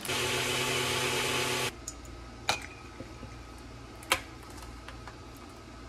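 A small electric motor whirs steadily and cuts off suddenly after about a second and a half. Then ice cubes are twisted out of a plastic ice cube tray, giving two sharp clicks a second and a half apart.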